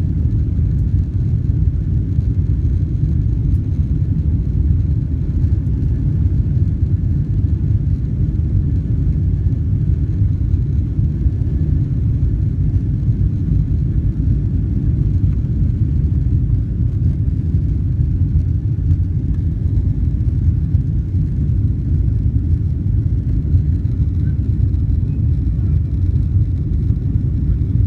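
Steady low rumble of a Boeing 777-300ER's GE90 jet engines during takeoff, even in level throughout with no rise or fall in pitch.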